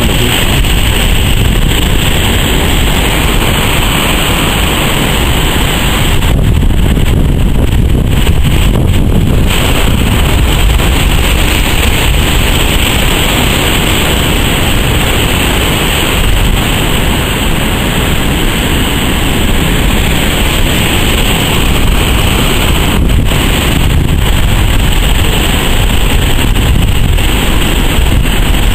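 Heavy storm surf breaking and rumbling, mixed with strong wind buffeting the microphone in a loud, steady roar.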